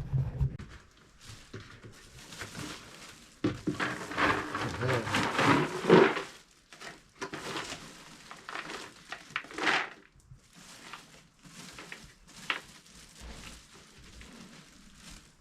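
A goat bleating loudly for about three seconds, starting a few seconds in, with a shorter call near ten seconds and scattered light knocks in between.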